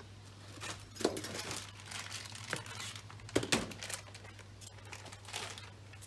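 Plastic bags and packaging crinkling and rustling in irregular bursts as someone rummages through a plastic storage box, with a couple of sharper knocks about three and a half seconds in.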